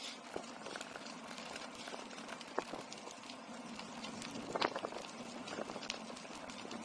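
Bicycle rolling along a rough tarmac path: steady tyre noise with a constant patter of small irregular rattles and clicks from the bike, and two sharper clicks about two and a half and four and a half seconds in.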